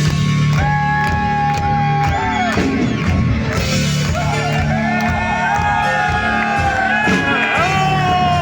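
Rock band playing live, loud, in an instrumental passage: a lead line of long held notes with vibrato and bends rides over steady bass and drums.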